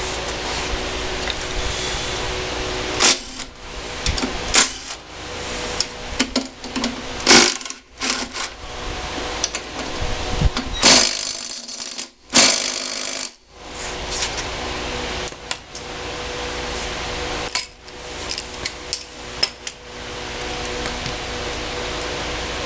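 Tools working on a Briggs & Stratton lawnmower engine as its cylinder head is taken off: scattered sharp metal clicks and clinks, with two loud rattling bursts of about a second each near the middle.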